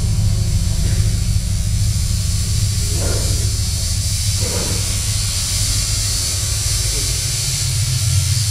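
Live electronic drone music through a club PA: a loud, steady deep drone with a hiss high above it.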